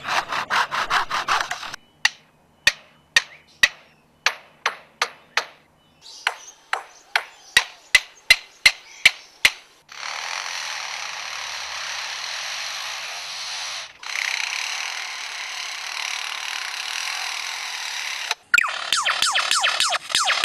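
A lyrebird mimicking a run of workshop and toy sounds. First come a few quick handsaw strokes, then single hammer blows that speed up about six seconds in. Next is a steady power-drill whir with a brief break, and near the end a rapid toy-gun rattle.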